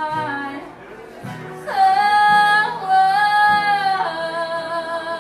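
A woman singing a slow country ballad live, stretching the last word into one long held note that steps down in pitch twice, over a softly strummed acoustic guitar.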